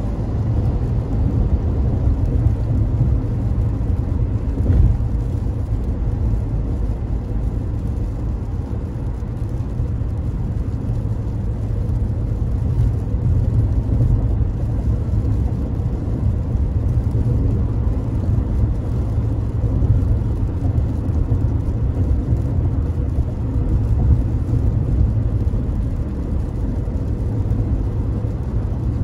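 Car driving steadily, with a low, even rumble of engine and tyres on the road.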